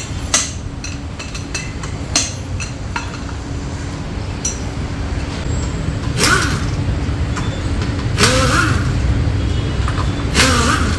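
Three short bursts of a pneumatic tool about two seconds apart, each with a hiss and a pitch that bends up and down, between scattered metal clinks over a steady low hum.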